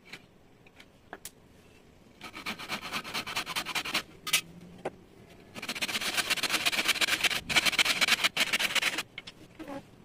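Handsaw cutting through the end of a wooden frame rail, a fast rasp of saw strokes in two bouts: one about two seconds in, lasting under two seconds, and a longer one from about five and a half to nine seconds, until the offcut comes free.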